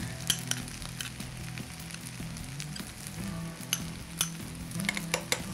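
Steady sizzle of rice cooking on a high flame, with sharp clicks and scrapes of a metal tablespoon against the dish as the rice is spooned and pressed into layers. The clicks bunch up near the start and again near the end.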